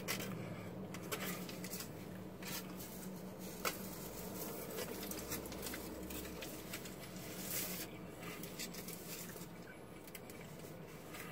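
Aluminium foil taco wrapper crinkling in the hands, with quiet chewing and scattered small crackles over a low steady hum.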